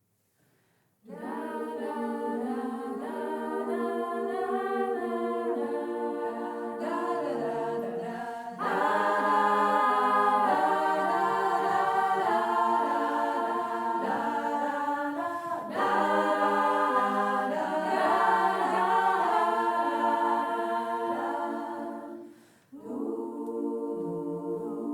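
An a cappella women's choir sings the song's introduction in held chords, with no lead lyric yet. The voices come in about a second in and swell louder about a third of the way through. They break off briefly near the end and then come back in.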